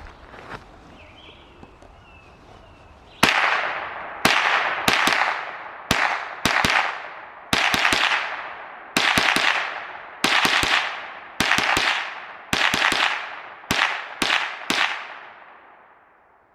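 An H&K MP5 .22 LR rifle fired semi-automatic: a string of about fifteen single shots at an irregular pace, each ringing out and fading. The shots start about three seconds in and stop a couple of seconds before the end.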